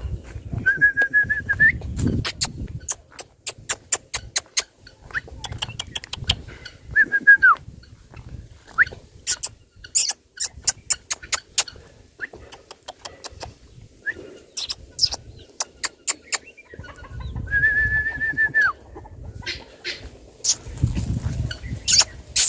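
Birds calling: three held whistled notes of about a second each, each dropping in pitch at the end, among many sharp clicks and low thumps.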